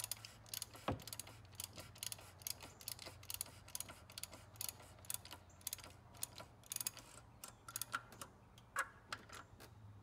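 Ratchet socket wrench clicking in quick, uneven strokes as it tightens the plastic oil filter housing cap down on top of the engine.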